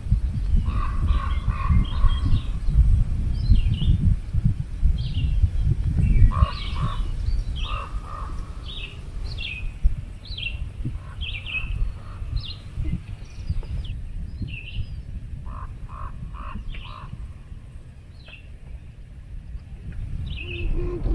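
Wild birds chirping and calling, many short high notes in quick succession and a few repeated lower whistles, over a low rumble that eases off after about ten seconds.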